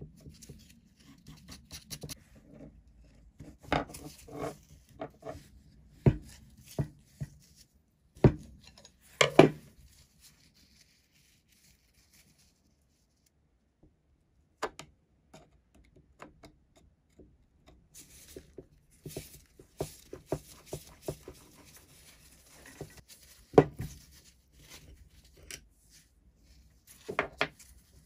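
Rusty steel parts of a pipe cutter being handled and worked apart by hand: scattered clicks, knocks and light scrapes of metal on metal, with a few sharper knocks and a brief quiet pause midway.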